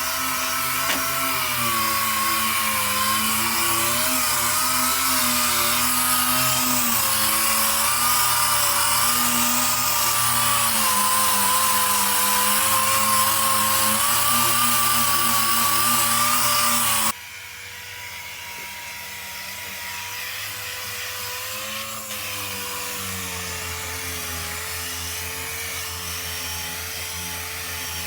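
A power tool running steadily, a whine that wavers slightly in pitch over a strong hiss. About seventeen seconds in it abruptly drops in level and keeps running more quietly.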